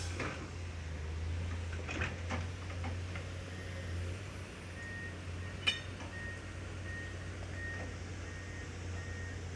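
Reversing alarm on a construction vehicle beeping in a steady high tone, about twice a second, starting about halfway in, over a steady low engine hum. There are a few knocks, and one sharp metallic clank just after the beeping starts is the loudest sound.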